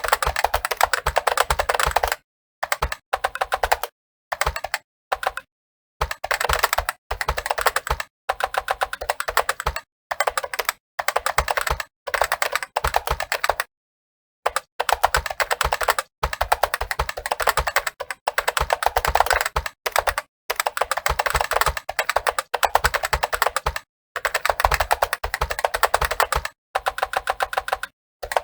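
Fast typing on a computer keyboard: rapid, dense runs of key clicks, broken by brief pauses, the longest about halfway through.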